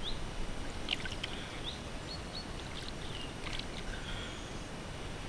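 Water sloshing and splashing at the pond's edge as a fish is let go from a landing net by hand, with a couple of short splashes.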